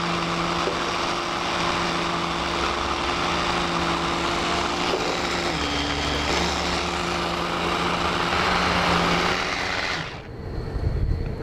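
Immersion-blender chopper attachment running steadily as it grinds softened butter with fresh tarragon into a compound butter. The pitch dips briefly about six seconds in, and the motor stops about ten seconds in.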